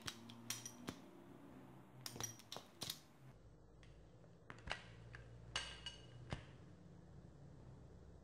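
Balisong (butterfly knife) being flipped open and closed in the hand: faint metal clicks and clinks of the handles and blade, in small clusters of two or three, about a dozen in all.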